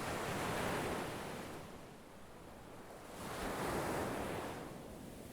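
Ocean surf: two waves breaking and washing out about three seconds apart, each a swell of rushing water noise that rises and then fades.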